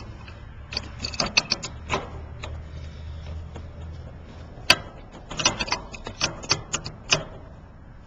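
Ratchet wrench clicking in quick runs as it turns the brass stem of an air-conditioner service valve, opening the valve. Two spells of rapid clicks, about a second in and again past the middle, with one sharper single click between them.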